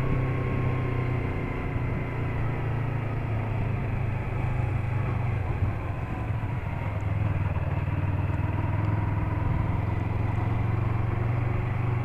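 Yamaha MT-03 motorcycle engine running steadily at town-riding speed, a low even drone that eases slightly for a few seconds as the bike turns a corner.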